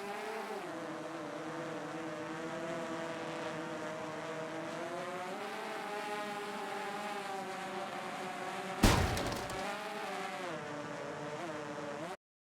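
DJI FPV drone's motors and propellers whining, the pitch rising and falling with the throttle. About nine seconds in there is a single loud knock as the drone strikes something, then the motors carry on. The sound cuts off suddenly near the end.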